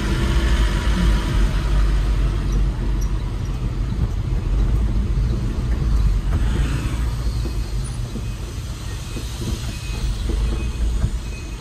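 Engine and road rumble heard from inside the cab of a Suzuki pickup driving in city traffic. From about halfway through, a faint high beep repeats at a steady pace: a reversing alarm.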